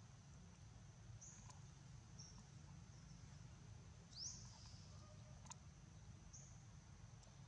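Faint outdoor ambience: a steady high insect drone with short high chirps four times, the loudest about four seconds in sweeping upward, over a low rumble.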